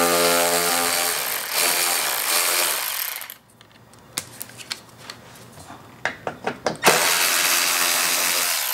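Milwaukee cordless ratchet running twice, about three seconds each time, backing out 10 mm bolts. A few sharp clicks and knocks come in the gap between the two runs.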